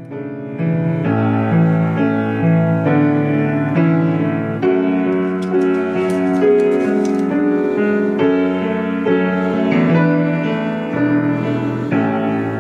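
Piano playing an instrumental piece: chords over a moving bass line, one note or chord after another. Around the middle there is a faint rustle of a sheet of music being handled.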